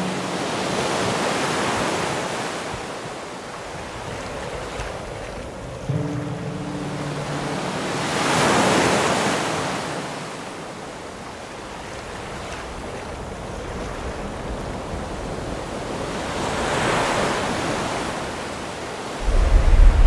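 Ocean surf breaking on a sandy beach, three waves swelling and washing in about every seven or eight seconds. A short low tone sounds about six seconds in, and a low rumble starts right at the end.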